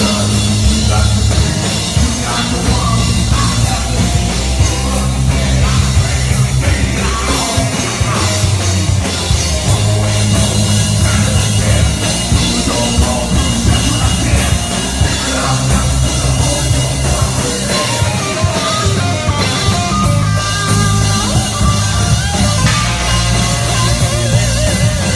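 A rock band playing loud heavy punk-metal: distorted electric guitar through a 5150 amplifier, with a drum kit driving a steady beat.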